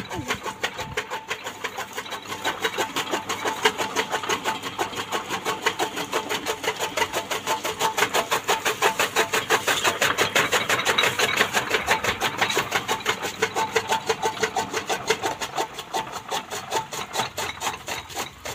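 Electric-motor-driven chaff cutter (fodder chopper) running, its flywheel-mounted blades giving a rapid, even mechanical clatter that grows a little louder in the middle.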